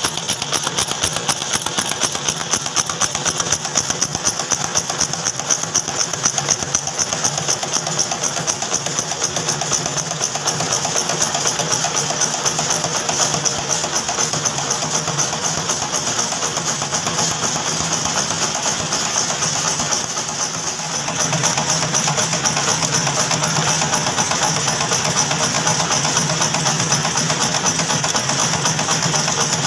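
Screw-making machine running steadily with a fast, even mechanical clatter, dipping briefly about two-thirds of the way through.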